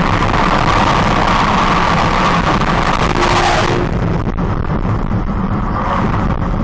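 Steady road and engine noise of a car in motion, as picked up by a dash cam.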